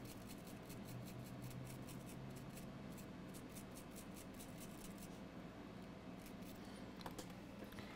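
Fine steel brush scrubbing corrosion off a MacBook Air logic board in quick, faint scratching strokes that die away about six and a half seconds in, over a low steady hum.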